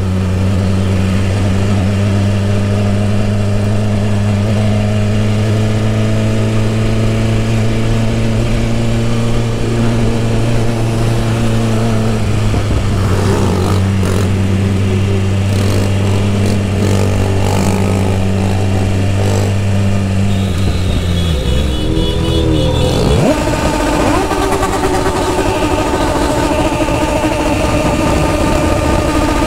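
BMW S1000RR inline-four motorcycle engine, run with no exhaust tip, holding a steady note at constant speed for most of the stretch. About three-quarters through, the note breaks and wavers, then settles at a higher pitch as the bike is ridden harder.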